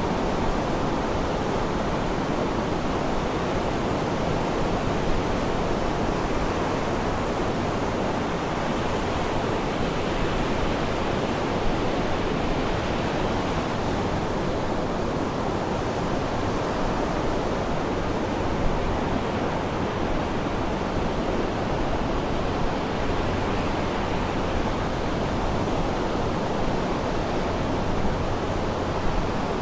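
Sea surf washing steadily, an even rushing noise with no distinct breaking waves.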